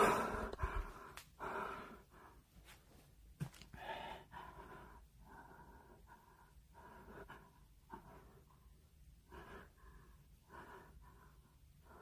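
Faint, uneven breathing close to the microphone, in short spells, after a single bump of the camera being handled right at the start.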